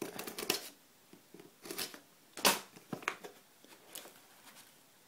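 A sealed SSD retail box being opened: a handful of short tearing and crinkling sounds as the seal and packaging give way, the loudest about two and a half seconds in.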